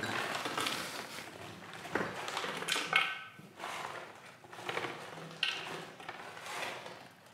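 Frozen mixed berries pouring into a Thermomix TM6's stainless-steel mixing bowl, clattering in several pours with short pauses between them, fading near the end.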